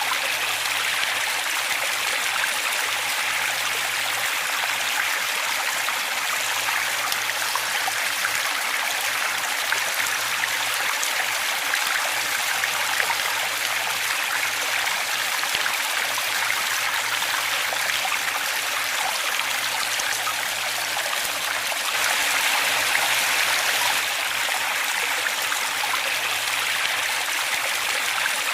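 Waterfall water running in a steady splashing rush, bright and hissy with little bass. It swells slightly for a couple of seconds about two-thirds of the way through.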